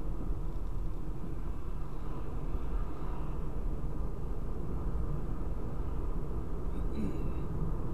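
Steady low road and engine rumble of a moving car, heard inside the cabin. A brief faint high chirp comes near the end.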